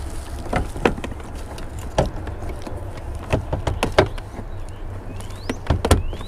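Scattered sharp metallic clicks and knocks as a hand and tool work at a truck's foot-operated parking brake assembly under the dashboard, several coming in quick succession near the end, over a steady low hum.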